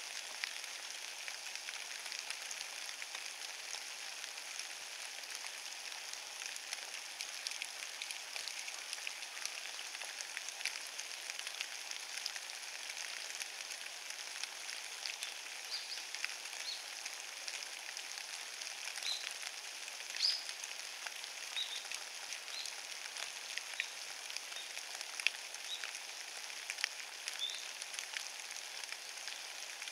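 Steady light rain pattering on a carpet of wet fallen leaves, a dense fine crackle of many small drops. A few short high chirps come through in the second half.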